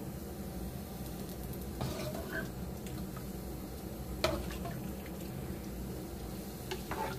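Coconut milk being scooped out of a rice cooker's inner pot: soft liquid and dripping sounds with a couple of sharp clinks of the utensil against the pot, over a steady low hum.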